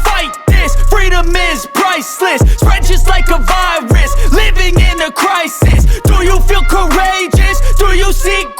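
Hip-hop background music with a heavy bass beat and a processed vocal or synth line.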